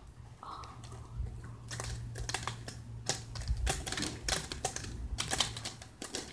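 Irregular soft clicks and taps of fingers handling a phone close to its microphone, over a low steady hum.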